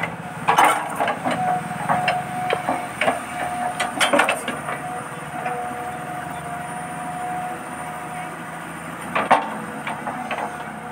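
Huina 1550 RC excavator's small electric motors whining steadily as the arm works, with several sharp wooden knocks as the log in its bucket bumps against wood and ground; the loudest knock comes near the end.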